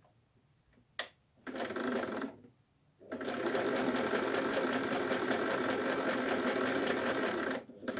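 Domestic electric sewing machine stitching a seam through patchwork cotton: a click about a second in, a short run of stitching, then a longer steady run of rapid, even needle strokes from about three seconds in that stops shortly before the end.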